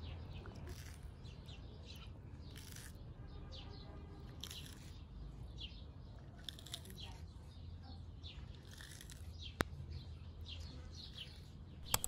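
Tortoise biting into and tearing a lettuce leaf: faint, crisp crunches at irregular intervals, with birds chirping faintly in the background.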